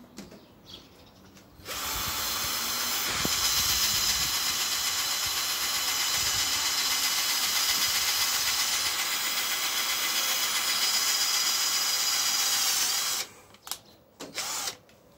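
Cordless drill motor running steadily under load as it drills a hole through a thin strip; it starts about two seconds in and stops a little before the end. A few light knocks follow.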